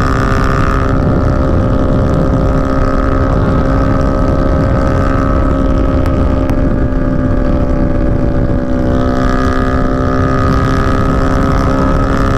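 Motorcycle engine cruising at a steady throttle, its pitch holding level with no revving or gear changes, over a constant rush of wind and road noise.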